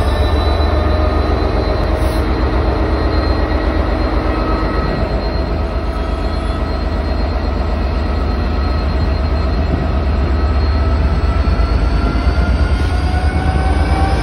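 Freightliner Class 66 diesel locomotive pulling a freight train out of the station, its two-stroke V12 engine under load. It makes a deep steady drone, with whining tones that rise slowly in pitch toward the end as the train gathers speed.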